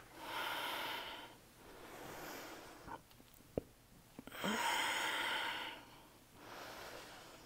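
A woman breathing slowly and audibly while holding a deep stretch: four long breaths in and out, the strongest a little over four seconds in, with a couple of faint clicks in the pause before it.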